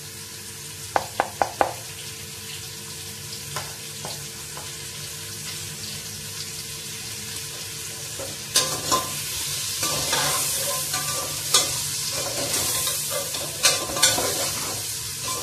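Onions frying in hot oil in an aluminium pot, a steady sizzle. About a second in, a metal spoon taps the pot four times in quick succession. About eight and a half seconds in, the sizzle jumps louder as onions go into the oil, and the spoon clinks against the pot a few times near the end.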